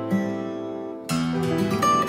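Instrumental background music of plucked strings, with a new chord struck about a second in.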